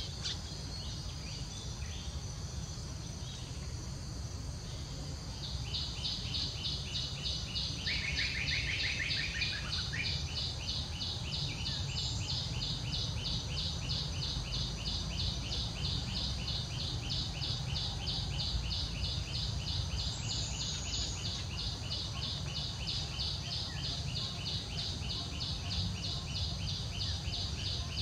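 Insects calling: a high, evenly pulsing buzz that starts about five seconds in and keeps a steady rhythm, with a second, lower trill joining briefly around eight seconds in. A steady low rumble lies underneath.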